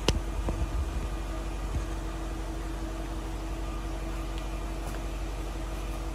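BMW E38 740i's V8 idling steadily during its cold start, an even hum that holds one level. A few knocks of handling come in the first half second.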